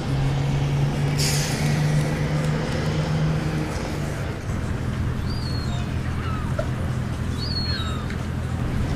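Waterside city ambience: a steady low engine hum from an idling vehicle, a short hiss about a second in, and short falling bird chirps in the second half.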